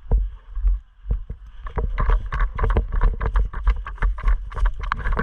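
Footsteps thudding close to a body-worn action camera, with clothing and gear rustling and knocking. They get busier and denser about two seconds in.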